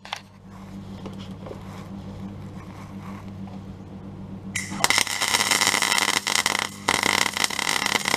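MIG welder arc crackling and sizzling as a plug weld is burned through a steel car sill panel, starting about four and a half seconds in after a low steady hum. The weld is held on longer than usual to get good penetration into a rib behind the sill.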